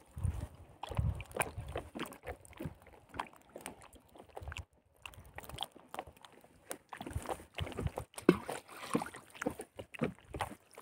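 Water sloshing and splashing as a fishing net is hauled up by hand from the water, with many irregular small knocks and ticks from handling the net.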